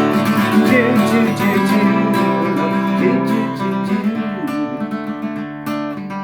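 Instrumental passage of a song, with an acoustic guitar strummed steadily in time.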